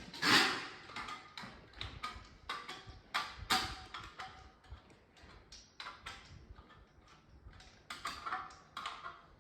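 Irregular knocks, clicks and short scrapes of timber floorboards being handled and laid, with two louder knocks, one right at the start and one about three and a half seconds in.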